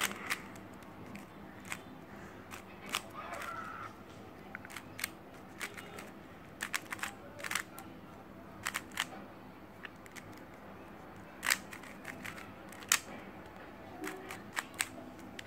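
GAN Monster Go 3x3 magnetic speed cube being turned quickly during a solve: irregular sharp plastic clicks and clacks as its layers are spun and snap into alignment.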